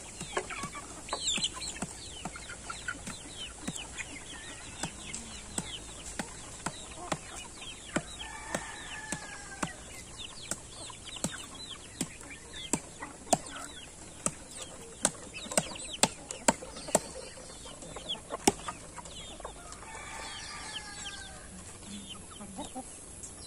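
Flock of chickens clucking and making short calls while feeding on termites, over scattered sharp taps about one or two a second.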